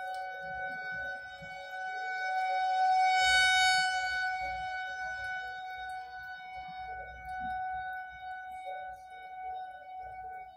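Federal Signal 2001-130 outdoor warning siren sounding a steady alert tone for a severe thunderstorm warning. The pitch holds steady while the volume swells to its loudest about three to four seconds in and then fades, as the rotating siren sweeps its horn past.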